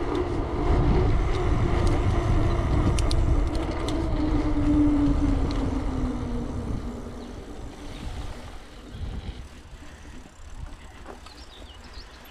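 A motor engine running with a steady hum over low wind rumble on the microphone; the hum dips slightly in pitch and fades away after about seven seconds as it passes.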